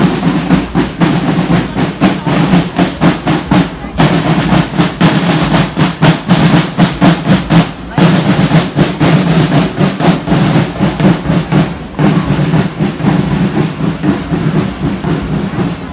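Snare drums of a military marching drum corps beating a steady march rhythm, together with the rhythmic stamping of massed boots marching in step.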